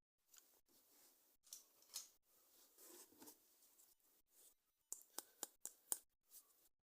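Faint rustling and scraping of toy packaging being handled and opened, with a quick run of sharp clicks about five seconds in.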